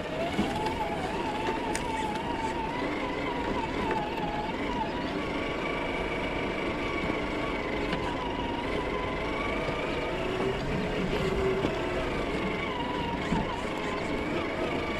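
Traxxas TRX-4 RC crawler's electric motor and geared drivetrain whining while crawling, the whine wavering up and down in pitch with the throttle.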